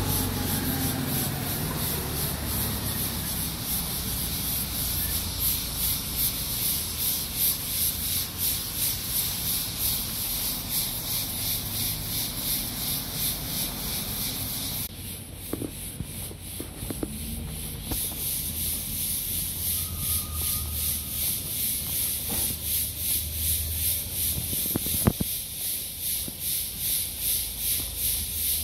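Footsteps of a person walking over dry fallen leaves and dirt, a crunching scrape in a steady walking rhythm, with a steady low rumble of road traffic underneath.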